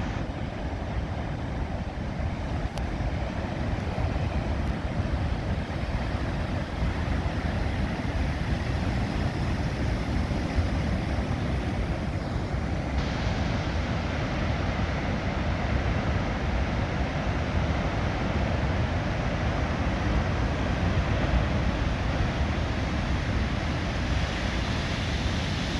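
Big ocean waves breaking in a continuous wash of surf, heaviest in the low end, with wind buffeting the microphone.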